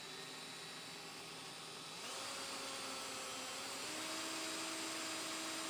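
Cordless drill running steadily, spinning a car's speedometer cable to drive the dashboard speedometer in a test for needle bounce. Its whine steps up in pitch about two seconds in and again near four seconds as the drill speeds up.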